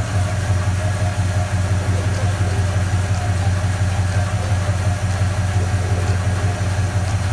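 Chevrolet V8 in a 1966 Chevelle idling steadily, with an even low rumble.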